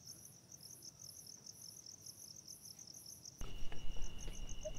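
Crickets chirping in an even, pulsing rhythm. A little over three seconds in, the background cuts suddenly louder and a steady high whine joins the chirping.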